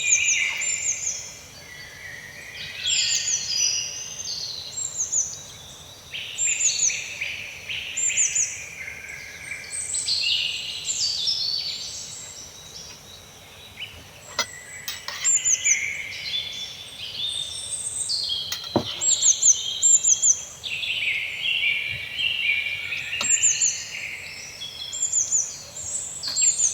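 Birds chirping and singing: several overlapping songs of quick, falling, high chirps and trills, with a few sharp clicks in the middle.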